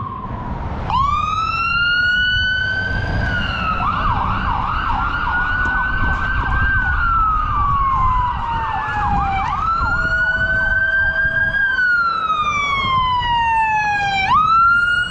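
Fire apparatus sirens on a responding fire engine and rescue unit. One siren wails in slow rises and falls, and a second siren yelps rapidly over it for several seconds in the middle, above the low rumble of the trucks.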